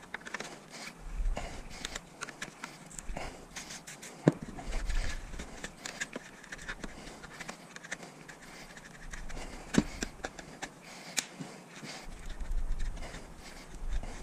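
Knife blade scraping and cutting through the adhesive sealant along the seam of a Tesla DC/DC converter's thin aluminium lid, with irregular clicks and taps of metal on metal and handling rumble. Sharp knocks stand out about four seconds in and again near ten and eleven seconds.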